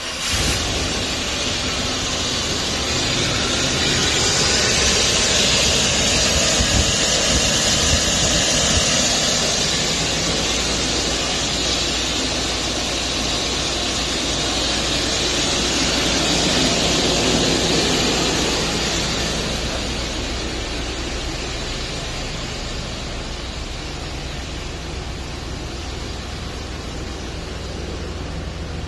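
2002 GMC Savanna 1500 van engine starting and then running at a steady idle, with a strong even hiss over a low, steady hum. It is slightly louder in the first half and eases off after about 20 seconds.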